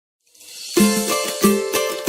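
Opening of a pagode song: after a brief silence and a faint rise, the band comes in about three-quarters of a second in, with plucked strings and sharp percussion strikes.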